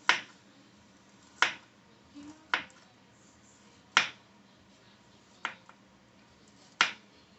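Kitchen knife cutting through a carrot onto a cutting board, six sharp knocks about one every second and a half.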